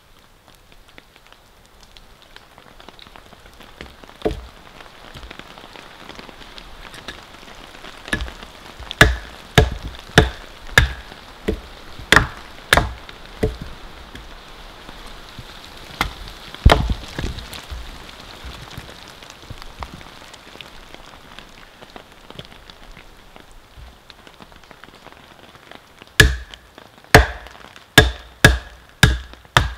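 A hatchet chopping and splitting short rounds of dense, dry hardwood on a log, heard over steady rain. There is a quick run of sharp strikes about two a second about a third of the way in, two more a little later, and another fast run near the end.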